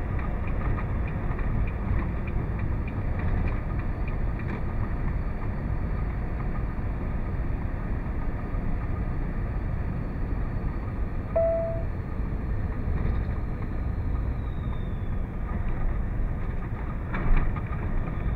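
Steady low engine and road noise inside a semi-truck cab cruising at highway speed. A single short beep sounds about eleven seconds in, and a brief knock comes near the end.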